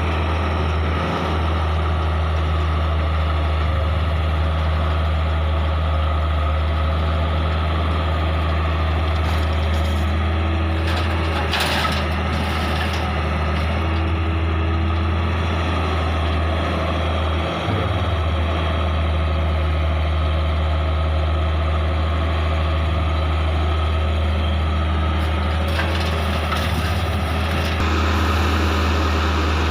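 Hitachi excavator's diesel engine running steadily under work, with a deep constant hum. A short rush of noise comes around twelve seconds in.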